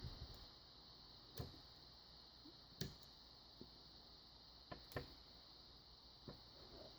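Faint, scattered clicks of a pick and tension wrench working the pins of a Kryptonite tubular lock: about six short clicks at uneven intervals, the clearest near 1.5, 3 and 5 seconds in, over near silence.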